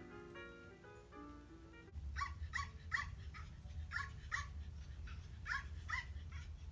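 Light plucked acoustic guitar music for about two seconds, then a puppy yipping and whimpering: about ten short high yips, two or three a second.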